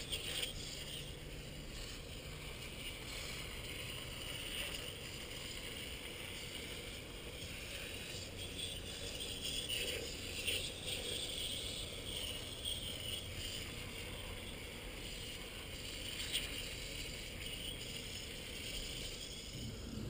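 Aerosol can of evaporator coil cleaner hissing as it is sprayed onto the coil, the hiss steady with a few swells.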